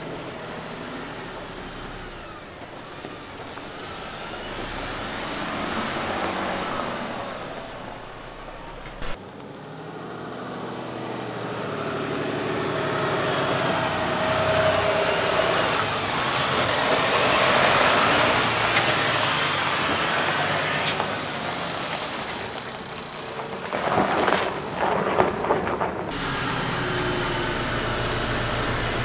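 Mercedes-Benz Arocs 8x8 heavy truck's diesel engine running as it drives slowly over rough gravel, growing louder through the middle. A cluster of short sharp noises comes about 24 seconds in.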